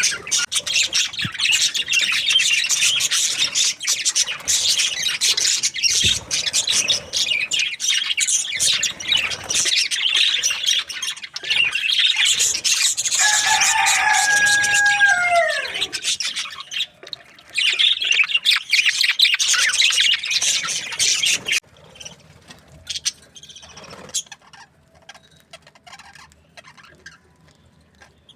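A flock of budgerigars chirping and chattering densely. About halfway through, a louder call cuts across, falling in pitch. A little past two-thirds of the way in, the busy chatter stops abruptly, leaving only faint scattered chirps.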